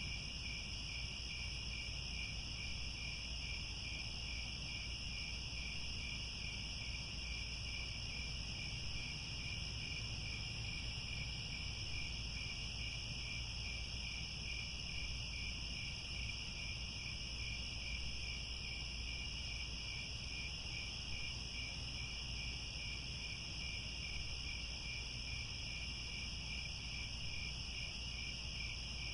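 Crickets chirring without pause in two steady high-pitched bands, the lower one rapidly pulsing, over a faint low rumble.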